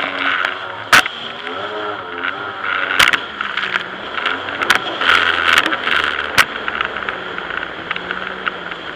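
Jet ski engine running, its pitch rising and falling as the throttle changes, over a steady hiss of water spray and wind. Three sharp knocks stand out, about a second in, at three seconds and past six seconds.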